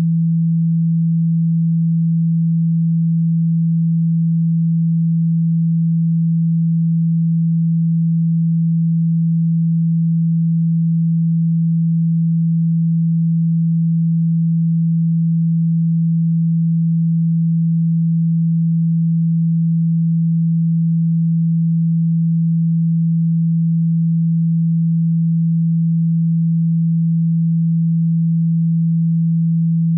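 A single low pure tone held steady without change, played as a speaker-cleaning sound to vibrate water and dust out of a speaker.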